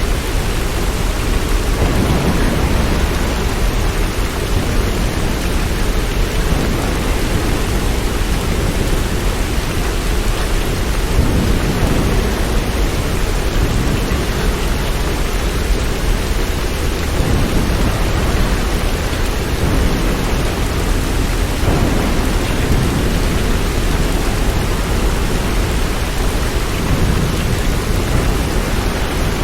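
Steady heavy rain: a dense, even hiss with a deep low rumble underneath that swells and fades every few seconds.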